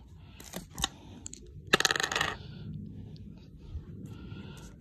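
Foil-wrapped trading-card packs rattling and clicking against each other in a cardboard box as a hand flips through them. A short burst of rapid clicks about two seconds in is the loudest part.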